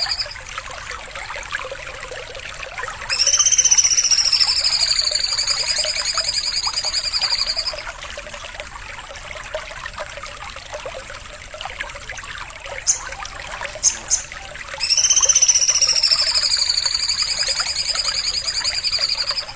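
A songbird's masteran song: a long, high, fast buzzing trill with a wavering pitch, lasting about four and a half seconds. It is heard twice, with a few short chirps between the two trills.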